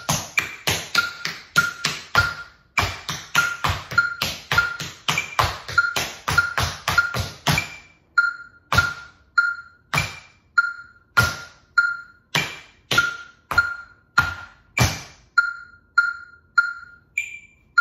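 Tap shoes striking a wooden floor in a quick rhythmic run, thinning after about eight seconds to sparser, single heavy taps. Under them a metronome beeps steadily about twice a second, with a higher accented beep recurring on the bar.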